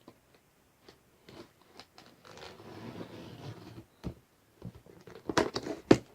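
Laptop box being unpacked by hand: cardboard and plastic packaging crinkling and scraping, with scattered small clicks and a cluster of louder sharp knocks near the end.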